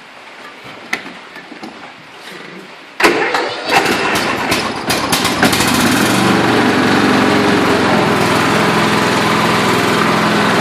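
Troy-Bilt riding lawn mower engine starting: about three seconds in, the starter cranks it for a couple of seconds, then the engine catches and settles into a steady run.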